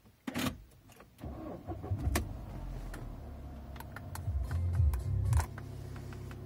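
An Audi A6 C6's engine starting about a second in and running at idle, louder for a moment near five seconds before settling to a steady hum. A few sharp switch clicks sound over it.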